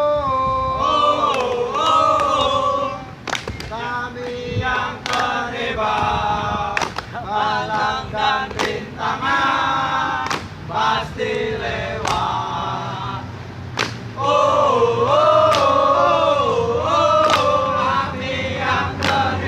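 A group of voices singing together in a chant-like tune, with a sharp hit, like a clap or stamp, about every second and a half to two seconds.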